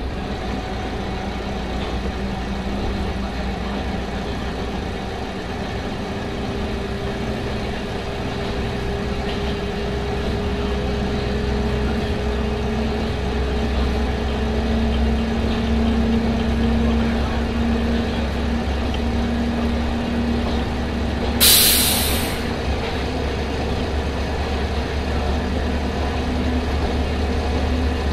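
Kanto Railway KiHa 005 diesel railcar running, its DMH17C straight-eight diesel engine droning under power with the note slowly rising and growing louder. About three-quarters of the way through comes one short, sharp hiss of released compressed air.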